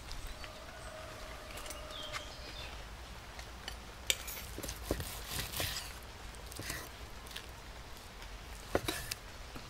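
Knife and carving fork cutting slices from a seared steak on a wooden cutting board: scattered soft clicks and taps of the blade and fork tines against the meat and the wood.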